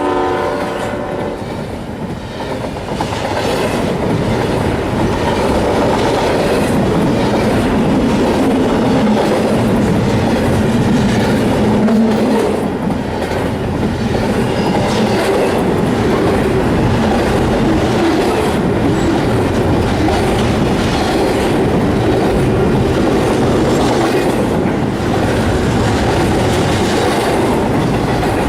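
A train running past with a steady rumble and the clickety-clack of its wheels over the rail joints. Its horn is just ending in the first second.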